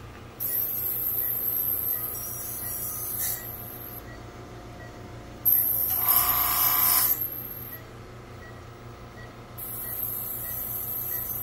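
Ultrasonic dental scaler working along a dog's teeth, running in three bursts of a high whine with the hiss of its water spray. The middle burst is the loudest.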